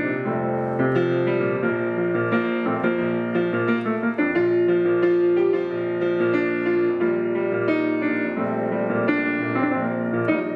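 Solo piano playing a hymn tune, chords struck at a steady pace with the notes left ringing.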